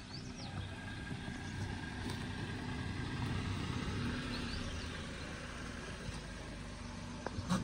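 Tata Punch's 1.2-litre three-cylinder petrol engine running at low speed as the car crawls over a rough dirt and rock track, getting louder as it comes close and passes, then easing off. A short sharp click near the end.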